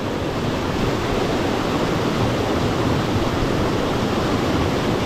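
Waterfall in full flow: raging water rushing as a steady, even wash of noise.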